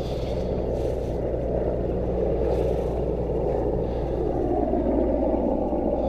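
Military helicopter in flight, a steady drone with a low hum underneath.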